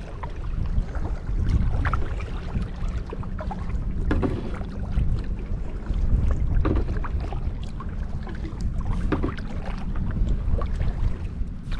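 Kayak paddle strokes in the water, a splash about every two and a half seconds, over a steady low rumble of wind on the microphone.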